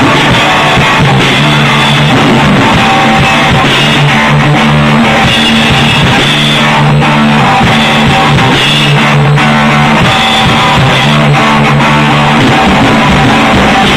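A drum kit played hard with sticks on toms, snare and cymbals, along with loud rock music that has a sustained guitar part. Very loud and close, near full level.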